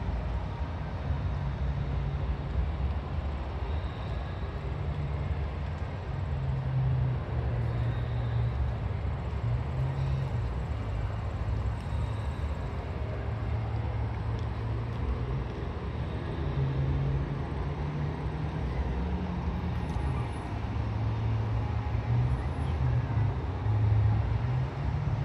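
Outdoor city ambience: a continuous low rumble that swells and fades unevenly.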